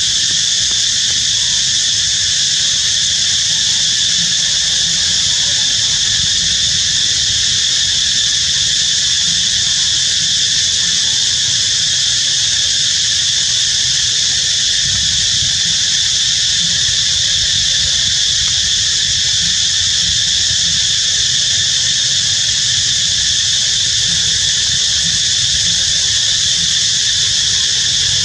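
Steady high-pitched drone of a chorus of insects, with a fainter low rumble beneath.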